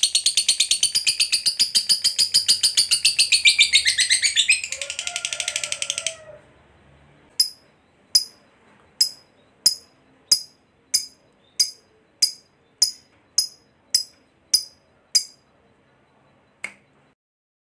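Lovebird giving its long, rapid chattering trill ('ngekek panjang') for about six seconds, falling in pitch near its end. It then gives a series of about a dozen short, sharp, high chirps spaced a little over half a second apart.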